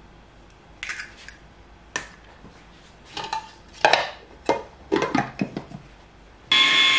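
Knocks and clinks of a glass mini chopper bowl and its plastic lid being handled and fitted. Near the end the chopper's small electric motor starts and runs with a steady whine, mixing the egg into the pastry crumbs.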